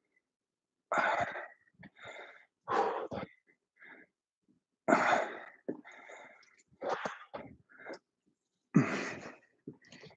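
A man breathing hard while exercising with a resistance band: short, forceful, noisy breaths in and out, about one a second.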